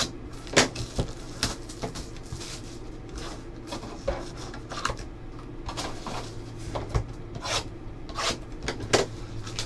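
Hands handling trading cards and card packs on a tabletop: cards and packs rubbing, sliding and tapping down, with scattered short sharp clicks and taps over a steady low hum.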